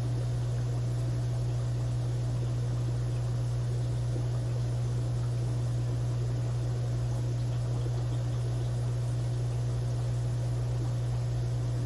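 Aquarium equipment running: a steady low electrical hum with a faint even hiss over it.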